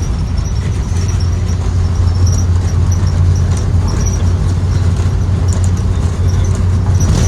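Interior of a 2023 Blue Bird Vision school bus with its Ford 7.3L gasoline V8 running: a steady, loud low drone. Light high-pitched squeaks or rattles come and go throughout.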